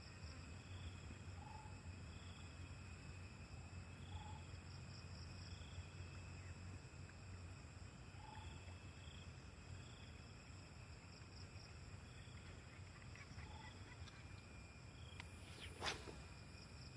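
Faint outdoor insect chorus of steady high-pitched droning, with a short call repeating every second or two. One sharp click sounds near the end.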